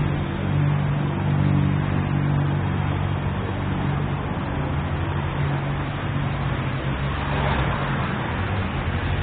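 Road traffic: a motor vehicle's low engine hum for the first few seconds, fading into a steady haze of street noise.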